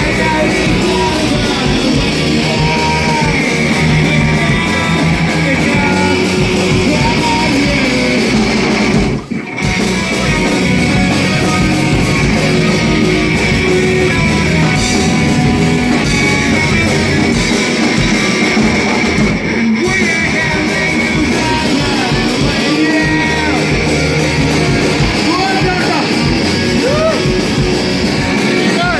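Rock music with electric guitar, drums and singing. It breaks off briefly about nine seconds in.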